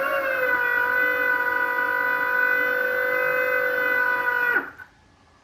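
Electric dirt bike conversion motor spinning with no load on it, giving a steady high whine at a light throttle. Its pitch dips slightly early on, then holds. About four and a half seconds in it winds down and stops.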